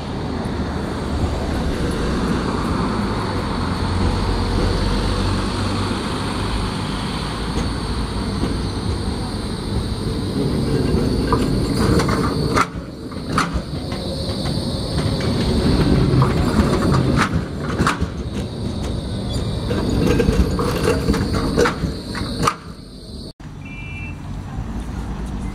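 Nottingham Express Transit tram approaching and running past on street track: a steady rumble of wheels on rail under a high whine, with a cluster of clicks and knocks as it goes by. Near the end the sound cuts to quieter street noise with a short beep.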